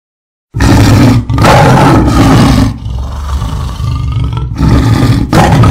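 Half a second of silence, then a loud, bass-heavy roaring rumble cuts in abruptly. It is broken by several short drops, like a sound effect on an advertisement soundtrack.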